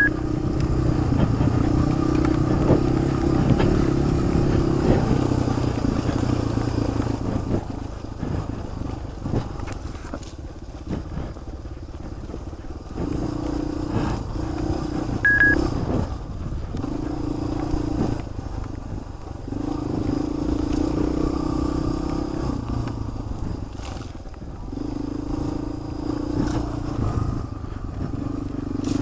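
Motorcycle engine running while riding off-road, its note swelling and easing in spells of a few seconds as the throttle is opened and closed, with rattles and clicks from the ride. A short high beep sounds about halfway through.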